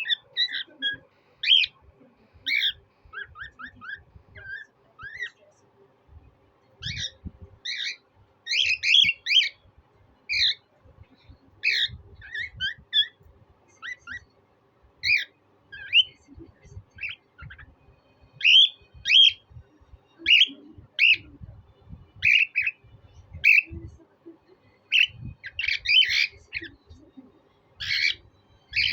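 Cockatiel whistling and chirping: short whistled notes in quick runs separated by pauses, some of them harsher squawk-like calls, with a denser run near the end.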